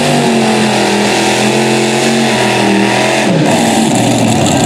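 Super modified pulling tractor's engine at high revs, holding a steady pitch as it drags the sled down the track. About three seconds in, the steady note breaks up into a rough, ragged noise.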